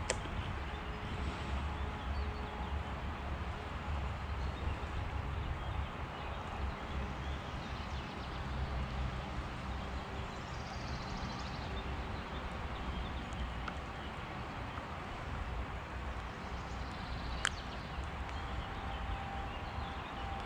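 Steady outdoor rumble and hiss of wind on the microphone, with one sharp click about three seconds before the end.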